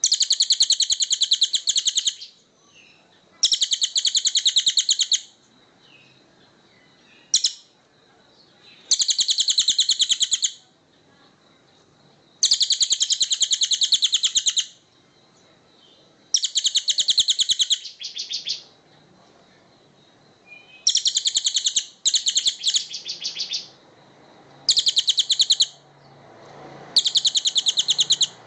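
A small songbird repeating a fast, rattling trill in high-pitched bursts of about one and a half to two seconds each, with short pauses between. There are about nine bursts, one of them very brief and another broken into pieces, played as a master song for training competition songbirds.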